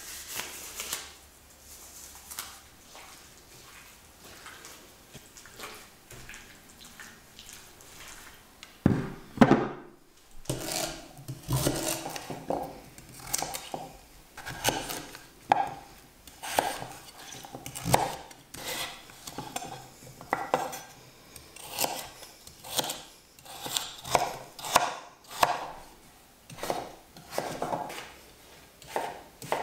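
Soft rubbing and handling sounds as a rubber glove is pulled on. Then, from about a third of the way in, a kitchen knife cuts Hokkaido pumpkin into cubes on a wooden chopping board, a sharp knock with each stroke, roughly once a second.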